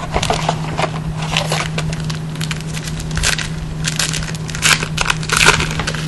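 Foil wrapper of a 2011 Panini Prestige football card pack crinkling and tearing as it is ripped open by hand, in a run of sharp crackles, loudest near the end.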